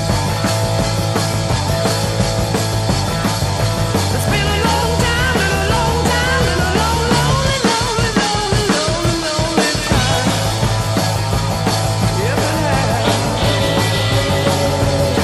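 Rock music with drums.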